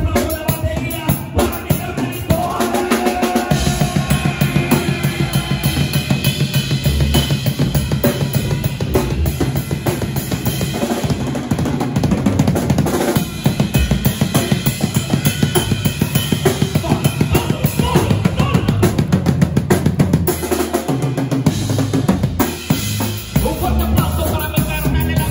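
Drum kit played live with a band: kick drum, snare and cymbals in a fast, steady beat over the band's guitars.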